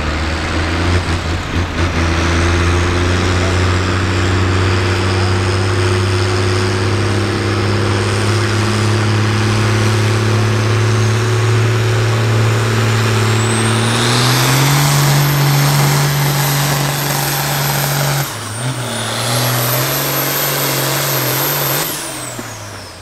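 Farm stock diesel pulling tractor running hard under load on the sled. The engine holds a steady drone that slowly climbs, steps up in pitch about two-thirds of the way in with a high whistle rising over it, dips briefly, climbs again, then winds down near the end.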